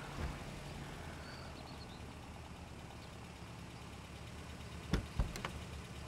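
Car engine idling with a steady low hum, then two sharp clicks close together about five seconds in as a car door is unlatched and opened.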